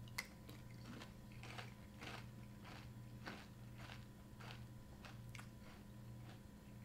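Faint crunching of a mouthful of dry Raisin Bran Crunch, bran flakes and granola clusters, being chewed with about two crunches a second, over a low steady hum.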